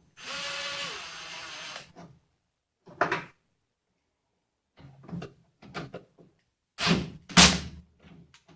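An electric drill-driver runs a screw in for about two seconds, its pitch dropping as it stops. Several clicks and knocks from parts being handled follow, the loudest about seven seconds in.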